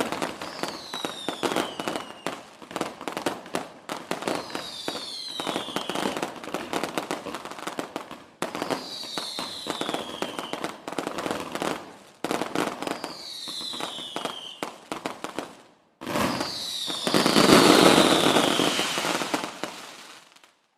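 Fireworks going off: dense rapid crackling and popping, with a whistle falling in pitch about every four seconds. Near the end a louder, fuller rush builds and then fades out.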